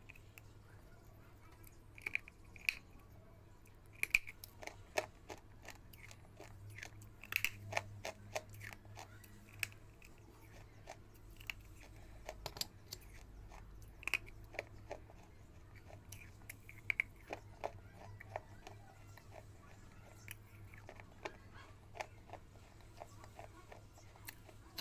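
Biting and chewing of hard, dry brown chunks close to the microphone: sharp crunches and crackles in irregular clusters, over a faint low steady hum.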